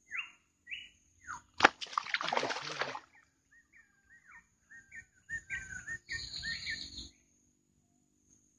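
Water splashing as a snakehead fish thrashes on a set hook-line in shallow swamp water, in two bursts: a sharp splash about a second and a half in that runs on for over a second, and another about five seconds in. Around them a bird calls in short chirps.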